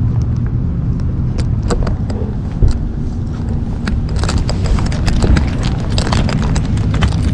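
Steady low rumble of a camera mounted on a service dog's harness moving with the dog, with many light metallic clinks and clicks, like harness hardware jingling, and a single knock a little over two seconds in.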